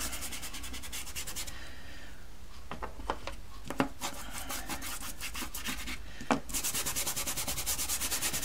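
A soft pastel stick scrubbed across textured pastel paper in quick back-and-forth strokes. The strokes die down for a few seconds in the middle, where a few light taps are heard, then pick up again, fast and even, near the end.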